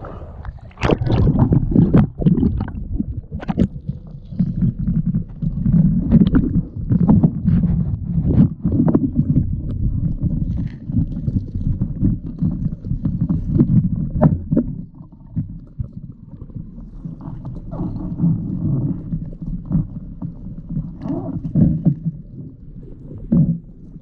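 Muffled sound of shallow seawater moving around a waterproof camera held underwater: a churning low rumble with many short clicks and knocks. It eases off briefly about halfway through, then returns.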